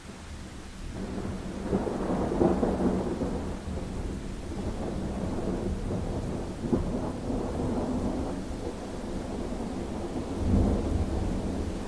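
Thunder rolling over steady rain: a long low rumble that builds about a second in, is loudest a second or so later, and swells again near the end.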